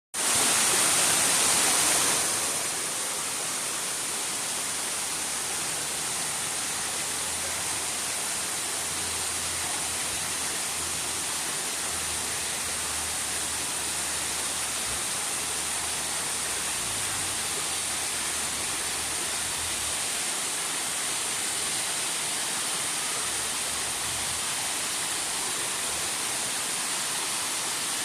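River water flowing in a steady rush, a little louder for the first two seconds.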